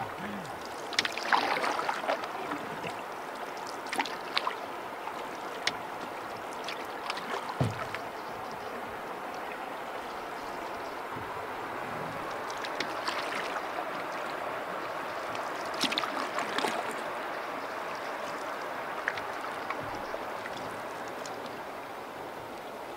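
Canoe paddling on a lake: paddle blades dipping and pulling through the water, with a few clusters of splashes and drips over a steady wash of water along the hull.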